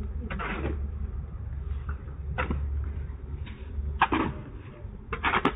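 Shovel blade scraping through a heap of wet cement mortar on brick paving as the mortar is mixed: four short, gritty scrapes, the loudest about four seconds in.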